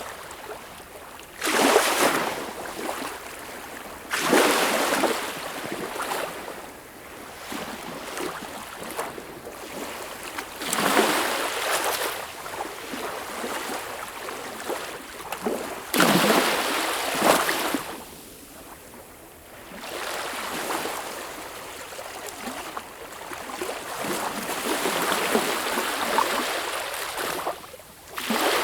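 Sea waves breaking, loud surges of surf every few seconds, each starting suddenly and then fading away.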